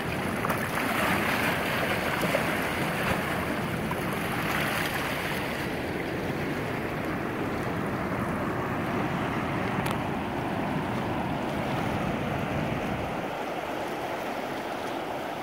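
Steady rush of fast, churning tailwater released below a concrete dam, with waves washing over a riverside walkway. A little louder in the first few seconds.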